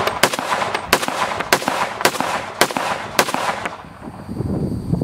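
A .300 Blackout AR-15 pistol fitted with a muzzle compensator firing about six shots in steady semi-automatic succession, a little over half a second apart, stopping about three and a half seconds in.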